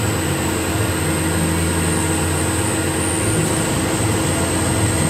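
Tormach PCNC 1100 CNC mill running steadily as its end mill cuts an aluminium motor mount plate: a constant machine hum under an even hiss.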